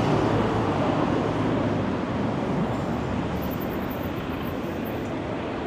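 City street traffic: engine and tyre noise from cars on the road alongside, a steady wash of sound that eases off slightly over the last few seconds.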